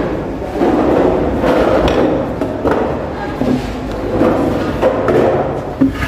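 Metal-framed school desks and chairs being dragged and scraped across a floor, a steady rumble of scraping with several knocks as legs bump.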